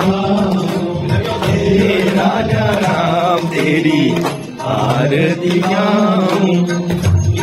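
Hindu devotional aarti song: voices singing in a chanting style over instrumental accompaniment, with a brief lull about four and a half seconds in.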